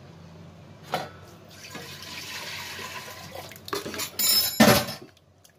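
A metal ladle stirring dal in an iron kadhai: the liquid sloshes and pours as the ladle scoops and empties. Near the end come several loud clanks of the ladle against the pan.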